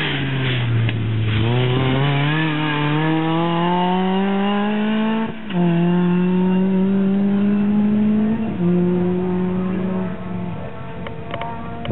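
Volkswagen Polo rally car's engine pulling hard as it accelerates away after passing close by, its pitch climbing steadily through the gears. It changes up about five seconds in and again about three seconds later, then grows fainter as the car gets further away.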